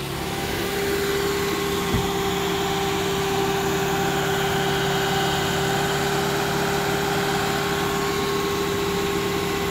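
Marine travel lift's engine and hydraulics running steadily with a constant hum as it hoists a yacht in its slings; it grows louder over the first second and then holds steady. A single short thump about two seconds in.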